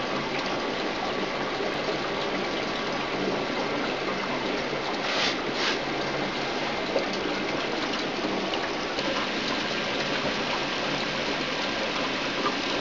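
Oxyhydrogen (HHO) gas bubbling steadily up through a tank of water from a submerged tube at about 12 litres a minute.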